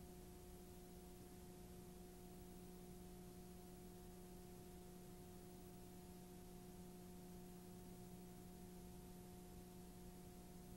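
Near silence: a steady hiss with a faint, steady low hum.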